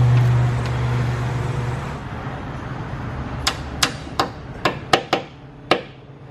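A hand wrench works a brake line fitting at a brake caliper, giving seven sharp metal clicks spread over about two seconds. A steady low hum fades out before the clicks begin.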